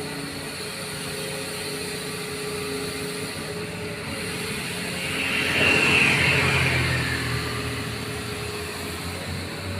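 Doosan excavator's diesel engine running steadily. About halfway through, a louder rushing sound swells up for around two seconds and fades again.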